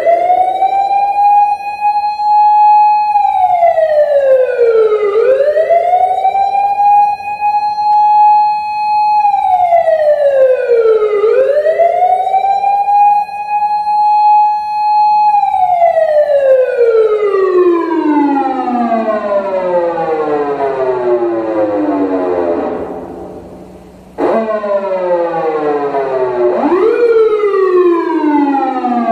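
Electronic siren from an Osaka Siren MK-10 siren amplifier, playing a motor-siren-style wail: it rises, holds a high pitch, falls, and does so three times, the third time sliding down slowly over about eight seconds, then starts a fresh rise near the end.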